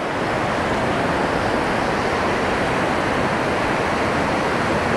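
Surf breaking offshore and a shallow wave washing up the sand in a steady rush, building briefly at the start.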